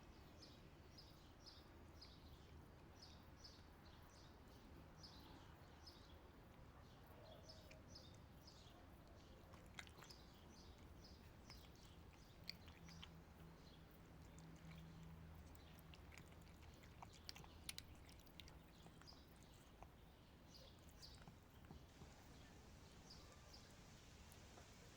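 Faint crunching clicks of a cat chewing dry food, mostly in the second half. Short high chirps repeat about twice a second in the background during the first half.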